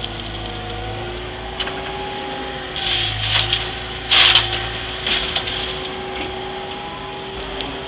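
Aggregate pouring from the Caterpillar M312 excavator's bucket into a truck's dump body, a rushing clatter in two main surges about three and four seconds in, the second the loudest, with a few smaller spills after. Under it the excavator's engine and hydraulics run steadily with a steady hum.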